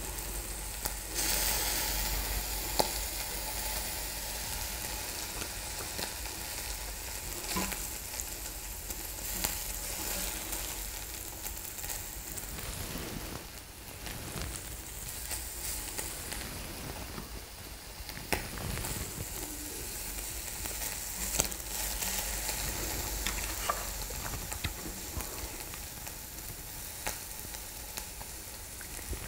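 Beef rib meat sizzling on a mini brazier grill: a steady hiss with scattered small pops.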